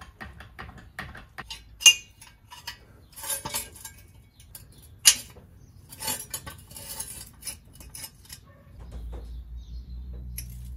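Steel axle stands and a trolley jack being set and adjusted under a car: scattered metallic clinks and short scrapes, with two sharp clanks about two and five seconds in. A low hum sets in near the end.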